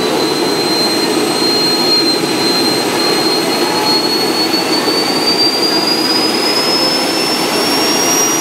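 Model gas turbine in a 5-inch gauge GT3 locomotive spooling up during start-up, just after kerosene is fed in: a steady rush of air with a high whine that climbs slowly in pitch.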